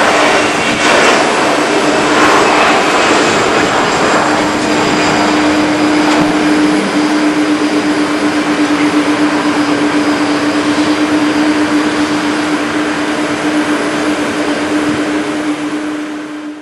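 Airbus A320-211's CFM56 turbofan engines at takeoff thrust as the jet rolls, lifts off and climbs away: a steady jet roar with a constant hum tone, easing off slowly near the end.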